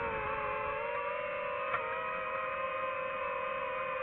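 DJI FPV drone's motors and propellers whining steadily, the pitch wavering slightly as the drone manoeuvres. A short click about two seconds in.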